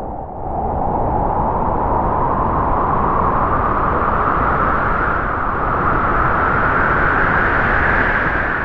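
Howling wind sound effect: one long gust of rushing noise whose pitch rises slowly, swelling in the first second and starting to fade near the end.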